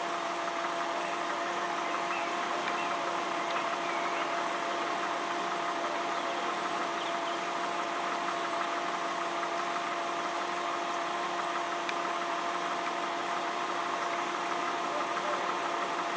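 Railway level crossing audible warning sounding steadily with the barriers down, a constant tone with overtones that does not rise or fall, while a train is on the approach. Faint bird chirps sound in the background.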